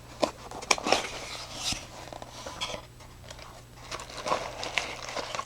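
A flashlight's retail box being opened and its packaging handled by hand: scattered clicks and taps with short bursts of rustling and crinkling.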